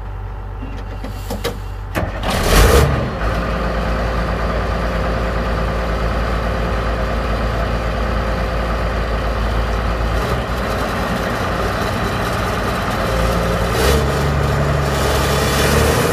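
Diesel engine of a large articulated tractor with a front loader bucket, working hard in deep mud: a steady low drone that grows louder and heavier near the end. About two and a half seconds in there is a loud noisy burst as the engine sound takes over.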